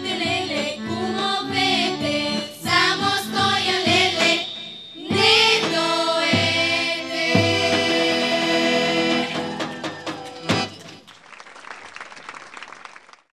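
Children's choir singing a Bulgarian folk song with accordion accompaniment, closing on a long held final chord. Light applause follows near the end.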